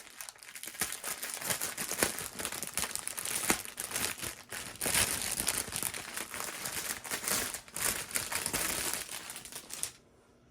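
Plastic packaging crinkling and crackling as the bagged diamond-painting drills are handled and unwrapped; it stops just before the end.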